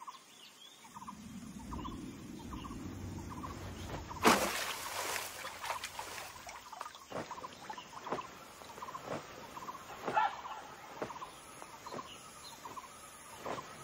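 Forest-swamp ambience with a bird calling repeatedly in short notes, and a brief loud rushing noise about four seconds in.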